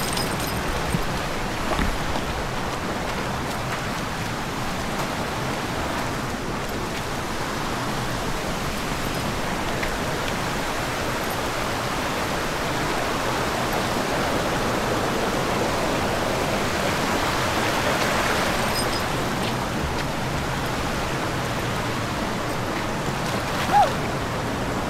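Creek water running steadily over a small rocky cascade, a continuous even rushing hiss. One brief squeak sounds near the end.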